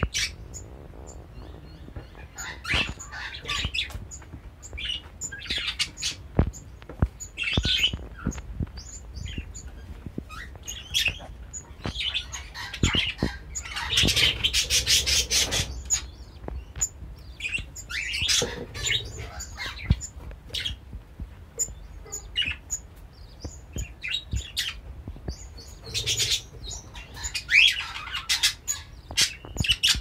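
Budgies chirping and squeaking in short bursts, with a dense run of rapid high-pitched squeaking about halfway through, among scattered sharp clicks. The high-pitched squeak is the female budgie's cry from inside the nest box, begging the male for food as he feeds her at the entrance.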